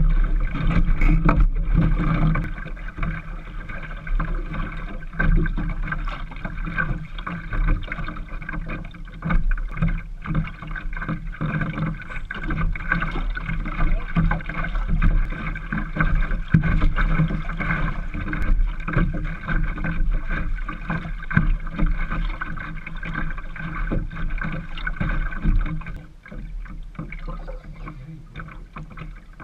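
Water lapping and sloshing against a small wooden sailing dinghy's hull in light air, with wind rumble on the microphone and scattered light knocks from the boat. It gets quieter near the end.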